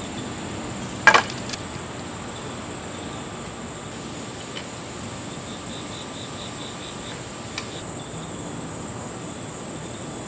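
Insects shrilling in a steady, high-pitched drone. A single sharp knock about a second in, with a few faint ticks later.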